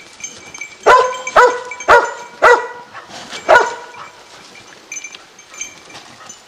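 Hunting dog barking five times in quick succession, the last after a slightly longer gap, baying at a downed wild boar.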